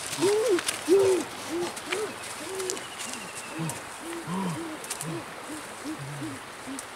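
Two people's voices, one higher and one lower, giving short repeated hooting cries about two a second, growing fainter.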